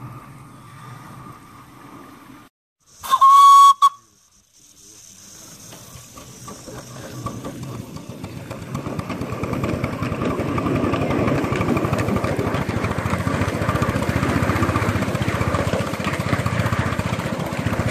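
A miniature ridable railway locomotive blows a short, loud whistle, a single pitched note under a second long. Then the train gets under way, and the running noise of the train on the track builds over several seconds and holds steady.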